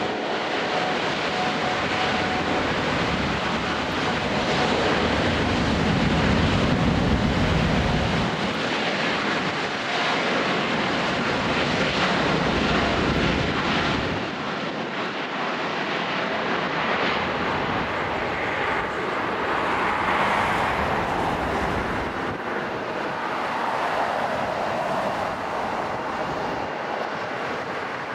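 An airliner's engines rushing as it passes the spotter on its landing approach. A deep rumble builds to its strongest about six to eight seconds in, drops away by the middle, and leaves a thinner rushing sound that slowly fades.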